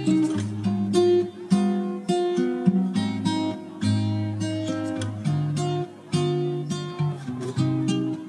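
Instrumental background music on acoustic guitar: picked notes and strummed chords over held bass notes.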